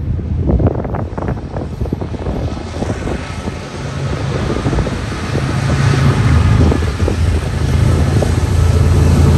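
BNSF freight train's diesel locomotives approaching: a steady low engine rumble that grows louder as they near, with wind buffeting the microphone in the first couple of seconds.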